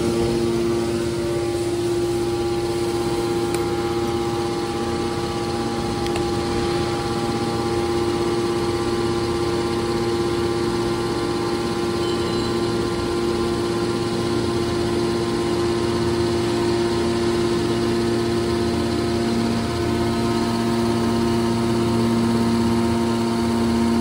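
Electric motor and hydraulic pump of a scrap metal shear baler's power unit running steadily, a constant machine hum with several held tones.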